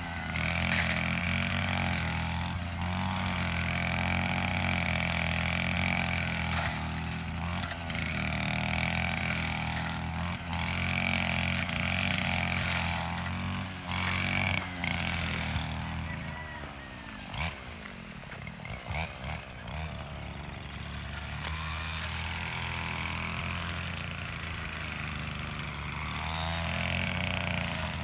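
Petrol brush cutter engine running at cutting speed while it trims grass. About halfway through the revs drop to a low idle for a few seconds, then rise back to cutting speed.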